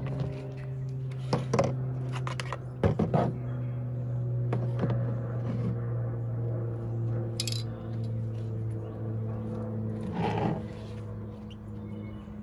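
Plastic car interior trim panels handled and set down on a plastic folding table, giving a few knocks and scrapes over a steady low hum.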